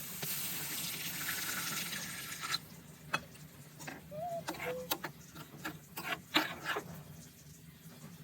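Water pouring in a steady stream that stops abruptly about two and a half seconds in, followed by scattered sharp clicks and clinks.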